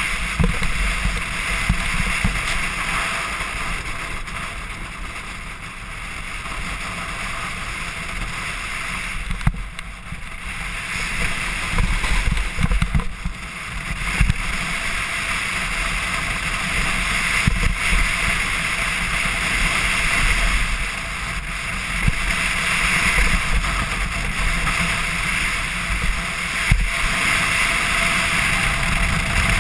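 Wind rushing over a helmet camera's microphone, mixed with the steady hiss and scrape of a snowboard riding fast over packed snow. A few sharp knocks break through along the way.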